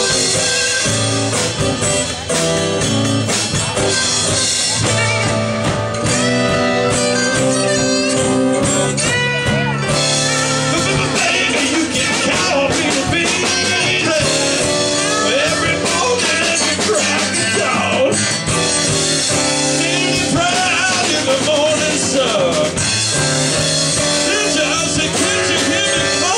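Live blues-rock band playing an instrumental stretch of the song: acoustic guitars strumming, electric bass and drum kit, with bending lead notes over the top.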